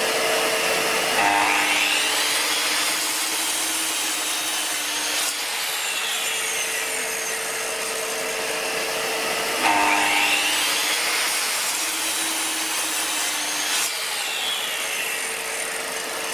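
Dust extractor running steadily throughout while a Bosch GCM8SJL sliding mitre saw makes two cuts through timber. Each time, the saw's blade whines up to speed, cuts for about four seconds, and winds down, the cuts about five seconds apart.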